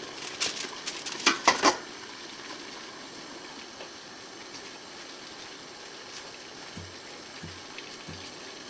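Stainless steel steamer pot on a gas burner: a quick run of metal clinks in the first two seconds as cookware is handled on it, then a steady hiss of the water boiling underneath.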